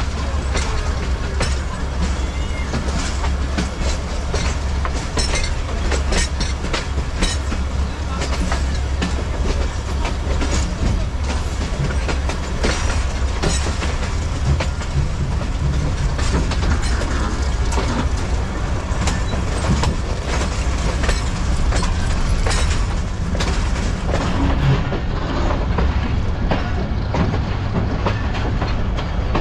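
Passenger train running on the rails: a steady low rumble with frequent clicks and clatter from the wheels.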